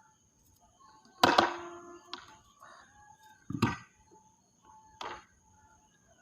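A rooster crowing once, about a second in, followed by two shorter sharp sounds. A steady high-pitched tone and faint chirps run underneath.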